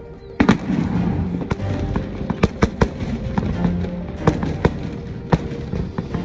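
Fireworks going off: a rapid, irregular series of sharp bangs and cracks from bursting aerial shells, starting about half a second in, over steady background music.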